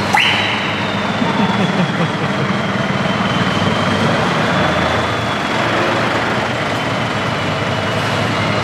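Scania truck's diesel engine idling steadily, with a thin high whine that sets in just after the start and slowly sinks a little in pitch.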